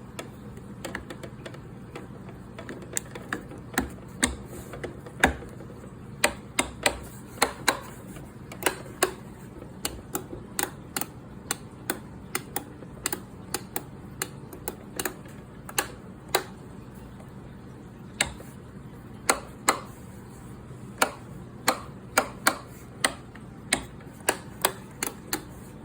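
Many sharp, irregular clicks and taps, sometimes several a second and sometimes with pauses of a second or two, over a faint steady hum: small hard parts being handled by hand.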